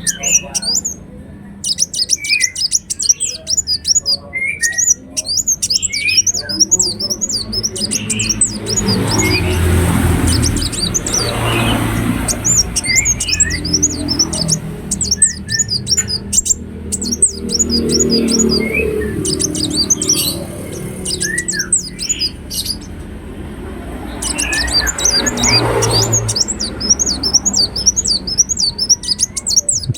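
Ruby-cheeked sunbird singing: rapid, high-pitched twittering trills in repeated runs broken by short pauses. A low background rumble comes and goes beneath them.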